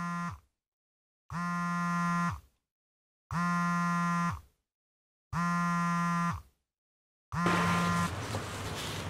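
Mobile phone buzzing for an incoming call: a low buzz about a second long, repeating every two seconds, five times, with the last one cut short. A steady background hiss follows.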